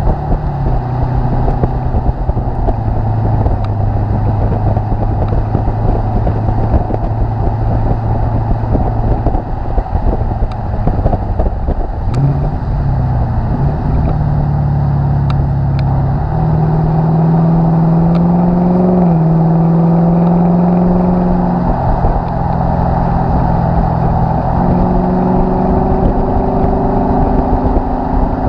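Lexus IS F's 5.0-litre V8 heard at the tailpipes through an X-Force cat-back exhaust while driving, over road and wind rush. The exhaust note holds a low steady drone at first, rises in pitch in steps from about halfway through with a brief dip about two-thirds in, then settles somewhat lower near the end.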